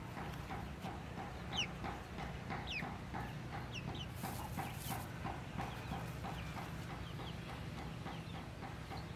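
A chicken clucking steadily in short, evenly spaced clucks, about four a second. A few high, falling chirps come in the first half, and a brief rustle of straw comes near the middle.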